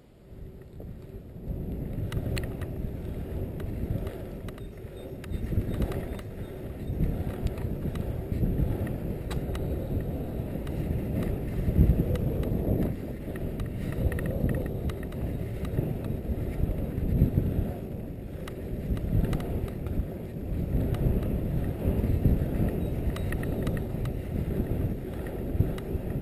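24-inch UMF Hardy Steel 2 bike ridden around an asphalt pumptrack: a low rumble of tyres rolling on asphalt mixed with wind buffeting the microphone, swelling and easing, with scattered sharp clicks. It starts about a second in.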